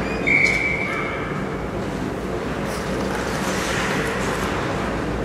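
Referee's whistle: one short, steady, high blast about a third of a second in, over the steady low hum of the ice rink.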